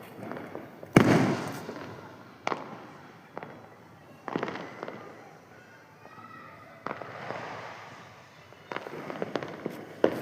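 Diwali fireworks and firecrackers going off: a loud bang about a second in, then several sharper cracks and bursts spaced a second or so apart, with a run of rapid crackling near the end.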